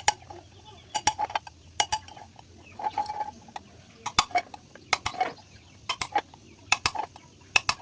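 Tin can metal being pierced and cut with hand tools: sharp metallic clicks and clinks in clusters of two or three, about once a second, as a hole is worked through the middle of the hard can piece.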